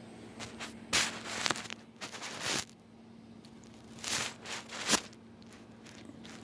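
Jar opener being worked on a jar lid: scraping and crackling grip-and-twist noises in two bouts, about a second in and about four seconds in, the second ending in a sharp click.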